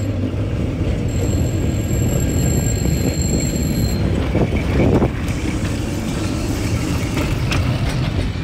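A St. Petersburg-built tram car running along its rails and passing close by, a steady low rumble that swells loudest about five seconds in, with a thin high whine from about one to four seconds in.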